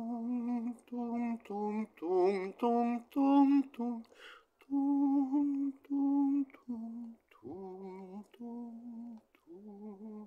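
A voice humming a slow tune without words: a string of short held notes with brief gaps between them.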